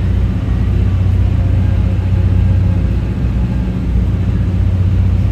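Steady low rumble inside a moving 12-series passenger coach, with an even engine drone underneath.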